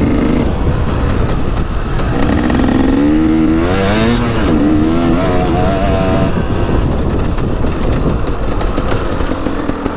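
KTM 300 EXC two-stroke dirt bike engine revving up and down as it is ridden over rough track, its pitch rising and falling several times in the middle, with wind rushing over the camera microphone.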